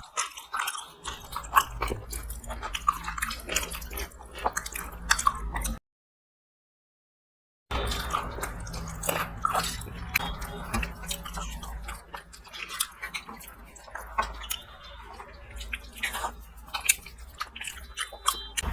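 Close-up chewing, biting and wet mouth sounds of people eating a home-cooked meal, with many short clicks and smacks over a faint low hum. The sound drops out completely for about two seconds midway.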